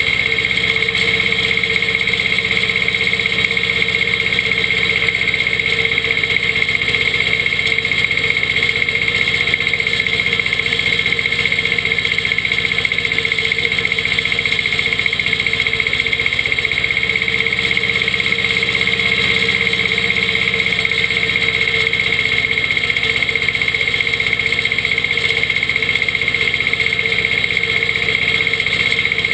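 Yanmar 2210B compact diesel tractor running steadily under load, driving a PZ CM 135 drum mower through standing hay, with a steady high whine over the engine.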